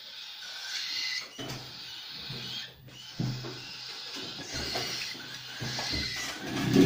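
Parrot chicks giving raspy begging calls at feeding time, mixed with small birds chirping.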